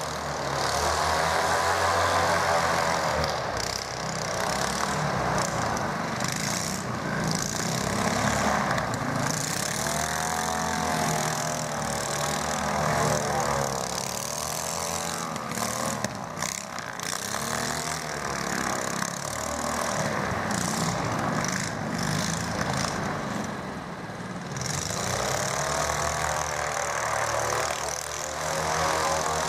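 Airboat's twin-engine tiller air-propulsion unit (Sapsan-18B-2D, two small petrol engines, 18 hp together, driving a 1250 mm wooden propeller) running under power as the airboat moves across snow. The engine note rises and falls several times, with a continuous rush of propeller noise.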